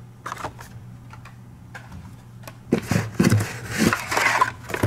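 Hot Wheels cars on blister cards being handled and pulled out of their cardboard shipping case. A few light plastic clicks come first, then from about three seconds in, loud rustling and scraping of card and plastic.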